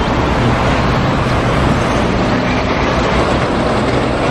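Double-decker bus engine running as the bus drives past, over steady street traffic noise with a strong low hum.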